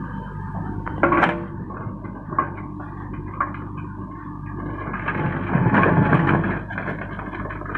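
JCB 3DX backhoe loader's diesel engine running steadily, with a sharp knock about a second in, lighter knocks after it, and a louder, rougher stretch from about five seconds in.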